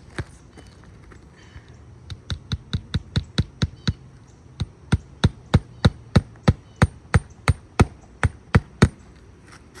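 Hammer driving roofing nails into an asphalt shingle: a single knock, then a run of about eight strikes, a short pause, and a longer run of about fourteen louder strikes, roughly three a second.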